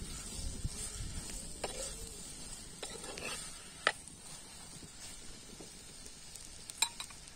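Diced sponge gourd frying in oil, sizzling as a steel spoon stirs and scrapes it around the pan, the sizzle growing quieter. Two sharp clicks, about four seconds in and near the end.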